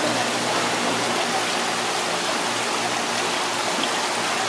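Steady rush of water circulating and aerating in live fish tanks, with a faint low hum underneath.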